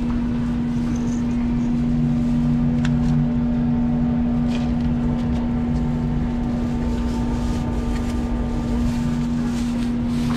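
A steady machine hum: one constant low tone with a weaker lower tone that swells and fades, and a few faint clicks.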